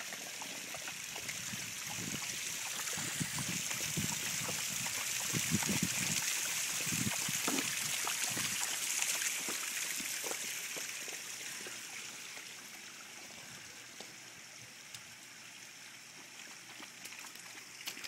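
Water running and splashing down the rocks of a small waterfall, a steady rushing hiss that swells towards the middle and then fades away over the last few seconds.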